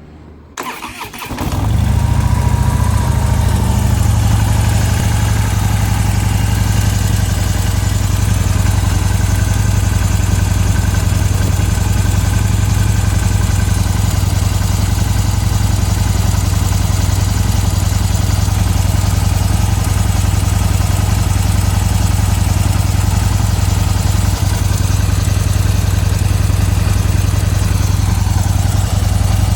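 2015 Harley-Davidson V-twin engine started about a second in, then idling steadily, with the ticking sound that its owner is asking about.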